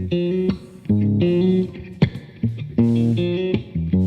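Electric guitar with bass playing a choppy riff of short chords that stop and start about once a second.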